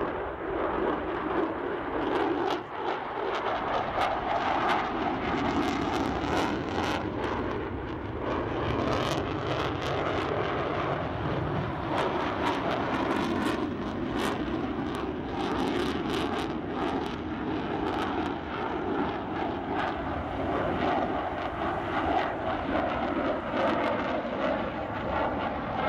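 Jet noise from two F-14B Tomcats with GE F110 turbofan engines flying a tail chase: a continuous rush, with many short sharp crackles through the middle.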